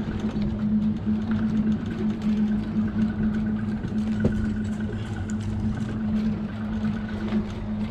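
Evinrude outboard engine idling with a steady low hum, holding the boat while a fish is fought on the rod. A single sharp tap sounds about four seconds in.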